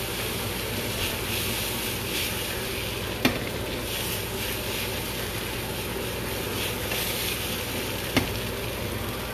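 Beef and bell-pepper fajitas sizzling in a frying pan as the pan is shaken and tossed, the hiss swelling with each shake. Two sharp knocks, a few seconds in and again near the end, stand out above the sizzle.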